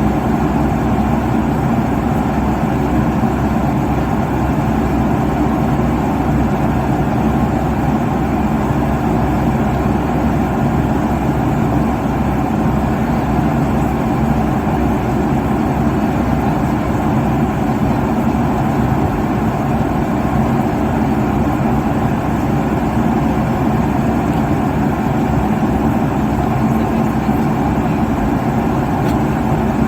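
Steady cabin noise inside an airliner at cruise: a constant roar of jet engines and airflow, heaviest in the low and middle range, with faint steady hums and no changes.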